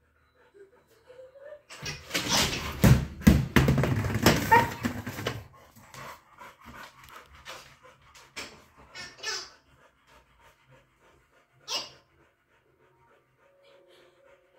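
A dog vocalizing in a loud, rough burst lasting about three and a half seconds, followed by scattered light clicks and one short sharp sound about twelve seconds in.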